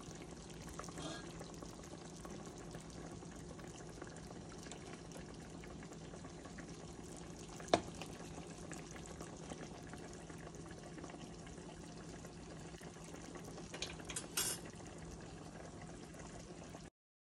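A metal spoon clinking against a ceramic serving bowl while sauce is spooned over fish: one sharp clink about eight seconds in and a few lighter clinks near the end. Underneath is a steady low hum and faint kitchen noise, and the sound cuts off just before the end.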